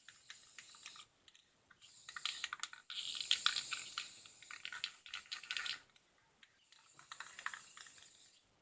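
Aerosol spray paint can spraying black paint onto a BMX frame in three bursts of hiss, the longest almost three seconds, with a sputtering crackle.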